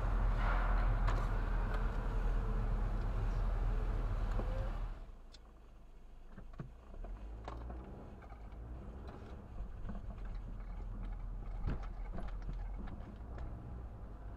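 Road and engine noise inside a moving car. It is loud for about five seconds, then drops suddenly to a quieter hum with scattered light clicks.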